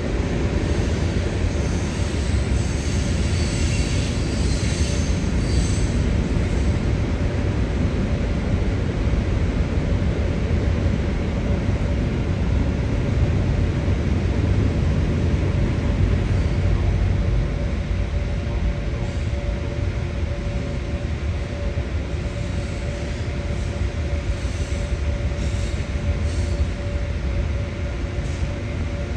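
Fire engine's diesel engine running steadily with a low rumble and a constant whine, plus a brief high squeal a few seconds in.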